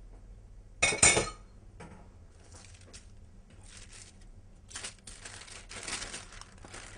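A short clatter of kitchen utensils about a second in. Then sheets of baking paper rustle and crinkle as they are handled over a mound of almond paste.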